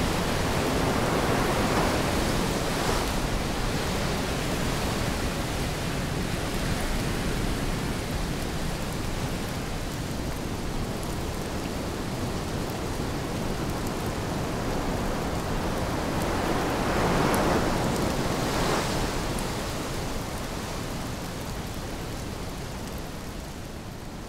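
Storm surf and rain: a steady rush of breaking waves and falling rain, with surges about two seconds in and again around seventeen to nineteen seconds in, slowly fading away near the end.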